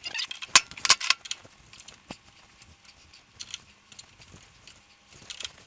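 Metal clinks and ticks of a steel die and die-stock handle being worked by hand on a stud held in a lathe chuck. There is a burst of sharp clicks in the first second or so, then scattered lighter clicks.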